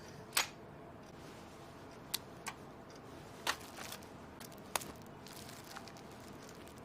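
A handful of short, sharp clicks and taps, irregularly spaced, over a faint steady hiss; the first, about half a second in, is the loudest.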